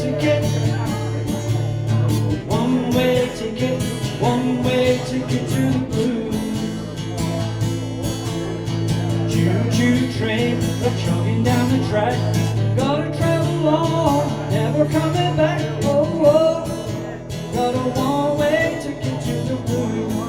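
Live music: acoustic guitar with a melody line moving up and down over a steady low bass.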